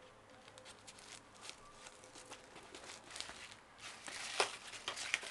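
Faint rustling and small clicks as a fabric EDC bag is handled and turned over, getting busier and louder in the last second and a half, with one sharp click about four and a half seconds in.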